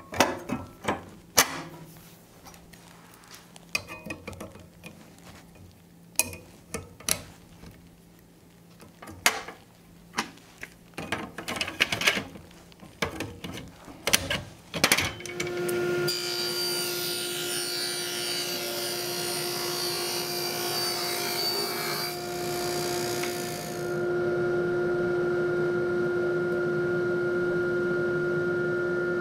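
Clicks and knocks of a table saw's throat insert and blade guard being fitted, then, about halfway through, the table saw starts and runs with a steady hum. A high hiss of air and dust rides over it for several seconds, then drops away while the hum carries on.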